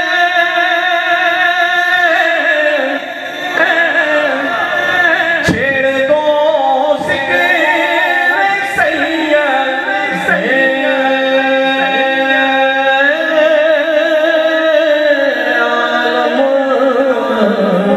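A man sings an Urdu naat into a microphone. He draws out long, loud notes with wavering, sliding ornaments and dips briefly about three seconds in.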